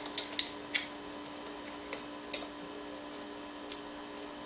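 Light, irregular clicks and taps of hands working an AMD stock CPU cooler and its retention clip on the motherboard mount, about half a dozen over the few seconds.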